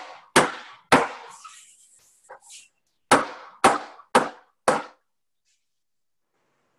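A metal sheet pan of piped macaron batter banged down hard on a wooden board: two loud bangs, then after a pause four more about half a second apart. The rapping knocks air bubbles out of the macaron shells before baking.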